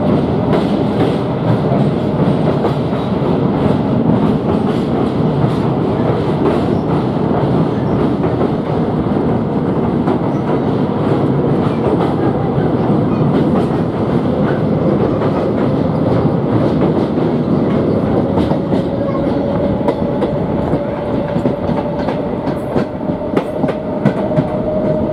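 Diesel-electric multiple unit (DEMU) passenger train running steadily on the track, its wheels clicking over rail joints. A faint whine rises slowly in pitch in the second half.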